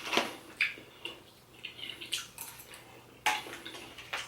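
Eating at the table: a few scattered short clicks and smacks of a utensil on a dish and of chewing a bite of seafood salad.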